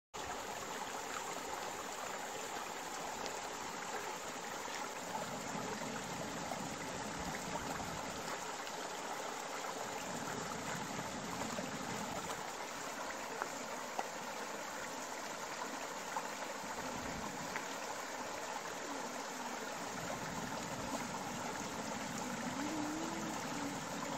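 Small shallow creek trickling steadily over its bed, with a couple of faint clicks about halfway through.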